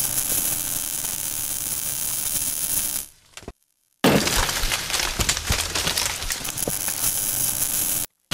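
Intro sound effect of dense crackling and crunching, thick with sharp clicks, like breaking glass or sparks. It fades out about three seconds in, comes back with a sudden loud hit about a second later, crackles on, and cuts off abruptly near the end.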